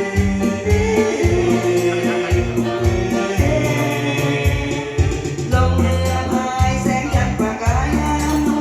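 A song playing: a band backing with a steady bass line and a shaker keeping a quick rhythm, with a melody line over it.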